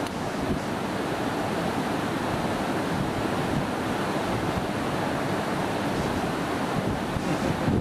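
Steady rush of flowing water from a forest river, an even noise with no breaks.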